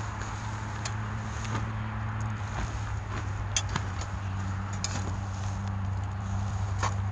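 A few light metallic clicks of tongs against the wire grill of a charcoal shichirin as the grilling food is turned, over a steady low engine-like hum.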